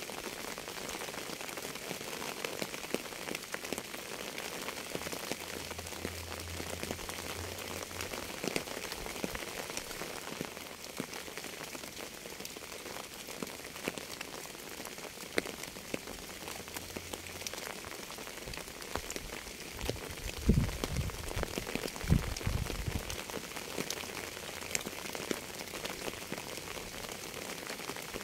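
Steady rain falling, with many individual drops ticking close by. A few low thumps or rumbles stand out about twenty seconds in.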